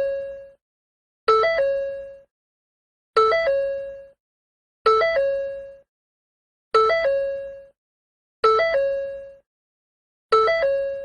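Ford door chime: a short three-note electronic chime that steps up and settles on a held tone, which rings out and fades. It repeats about every two seconds.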